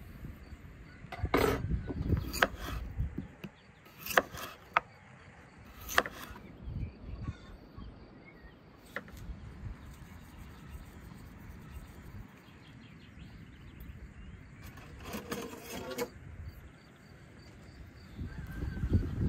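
Kitchen knife cutting vegetables on a wooden cutting board, with several sharp knocks in the first six seconds. About fifteen seconds in, a bundle of long metal kebab skewers clinks as it is picked up. Crickets chirp steadily in the background.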